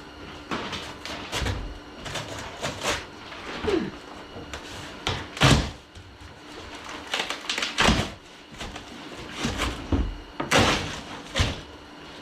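Metal tool cabinet being unpacked and handled: a series of irregular knocks, thumps and scrapes, the loudest about five and a half and eight seconds in.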